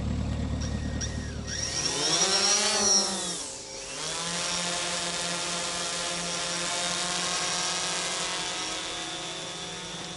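An engine idling with a low hum, cut off about two seconds in. Then a DJI Phantom quadcopter's propellers buzz, rising and falling in pitch, and settle into a steady buzz that slowly fades.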